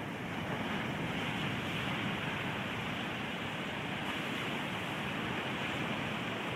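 Ocean surf breaking on a sandy beach: a steady, even rush of waves.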